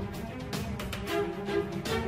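Background music: held string tones over a steady percussive beat.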